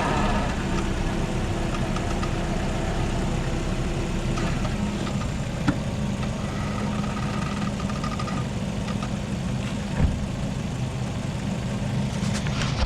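Lada Vesta's 1.8-litre four-cylinder engine running at low speed while the car creeps forward and back under its AMT 2.0 robotised gearbox, with two short knocks, the louder one about ten seconds in. No squeak comes from the gearbox's Sachs actuators, which the owner takes as a sign that they work without problems.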